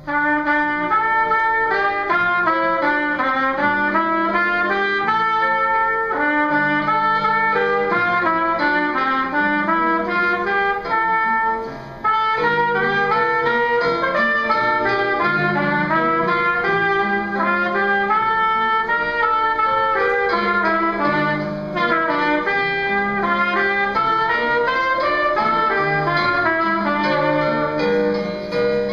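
Trumpet solo: fast runs of notes climbing and falling in scale-like patterns over lower held notes, with one brief break about twelve seconds in.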